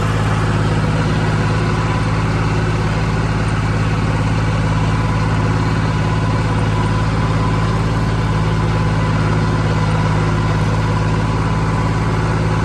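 Heavy engine running steadily at a constant speed, with no revving or change in pitch.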